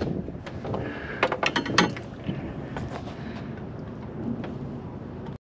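Fishing rod, reel and terminal tackle being handled as a rig is sent back out: a quick run of sharp mechanical clicks and rattles about a second and a half in, over a steady hiss.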